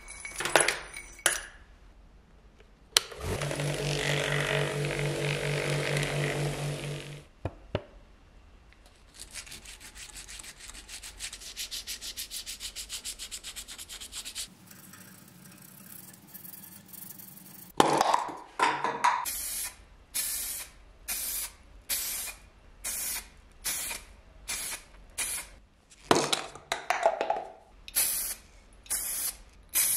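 Vibratory tumbler buzzing steadily for a few seconds as it polishes small parts in granular media. In the second half, an aerosol spray-paint can gives a long run of short hissing bursts, a little over one a second, with one longer spray partway through.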